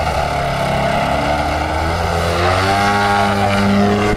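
A DLE 55 single-cylinder two-stroke petrol engine drives the propeller of a Sebart 2.2 m aerobatic model plane in flight. Its steady buzz rises in pitch and grows a little louder a little past halfway through.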